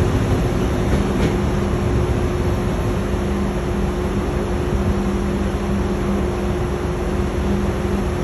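Steady electric hum and rumble of a high-speed electric train at a station platform, with two constant hum tones over a low, even rumble.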